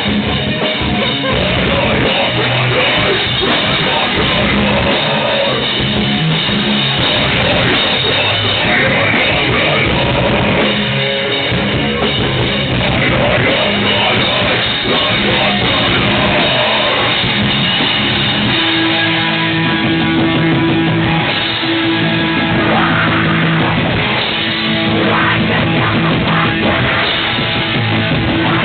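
Rock band playing: electric guitar and drum kit, loud and steady, with a held note coming in about two-thirds of the way through.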